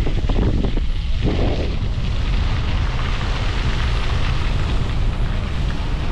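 Wind buffeting the microphone of a camera in a moving car, a loud, steady rumble over the noise of the vehicle on the road.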